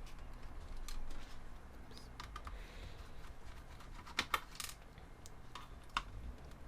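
Scattered light clicks and taps of an old laptop's plastic parts and components being handled and pulled apart during disassembly, with a short cluster of sharper clicks about four seconds in.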